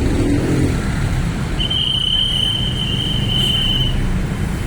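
Road traffic and engine rumble, with a single steady high-pitched tone held for a little over two seconds in the middle, like a whistle.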